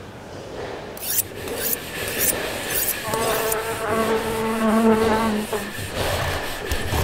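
A series of short rasping scrape strokes on a hard surface, about two a second. A steady buzzing tone overlaps them from around the third second for about two and a half seconds, then stops.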